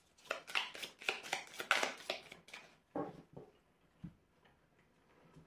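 A deck of oracle cards shuffled by hand, a rapid run of card-edge clicks lasting about two and a half seconds, followed by a few soft ticks and a single light tap about four seconds in as a card is set down on the cloth.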